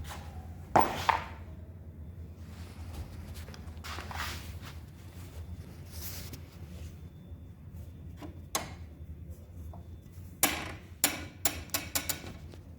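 Scattered sharp clicks and knocks of tools and small parts being handled on a workbench, with a cluster of quick knocks near the end, over a steady low hum.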